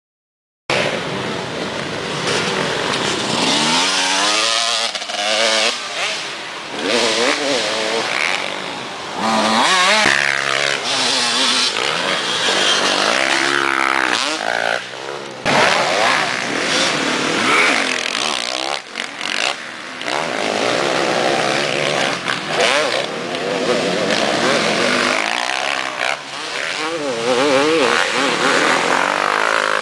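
KTM 250 two-stroke dirt bike's single-cylinder engine, revved hard and backed off again and again as it is ridden over the jumps, its pitch rising and falling with each pull. It starts abruptly about half a second in.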